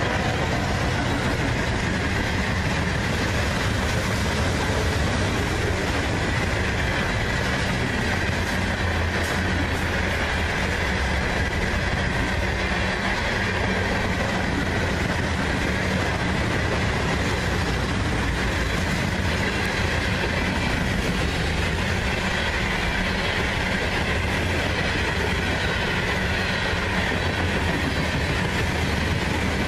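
Loaded coal hopper cars of a long freight train rolling past at about 45 mph: a steady, continuous rolling noise of steel wheels on the rails.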